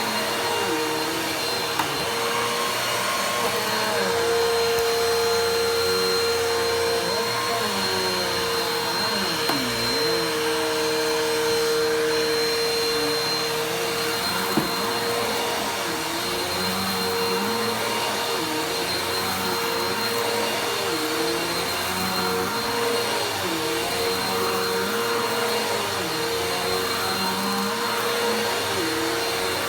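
Vacuum cleaner running continuously, a steady whine over rushing airflow, its pitch dipping and recovering now and then, with a few faint clicks.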